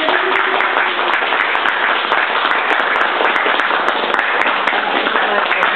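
Audience applauding: dense, steady clapping from many hands, with a few voices underneath at the start.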